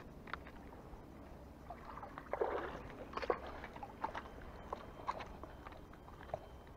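Faint rustling and scattered short clicks from handling a small fish hanging on the fishing line, over a steady low background.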